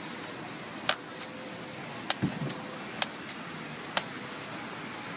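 Knife chopping fruit on a cutting board: four sharp knocks, about one a second, with a duller thump near the middle, over steady street background noise.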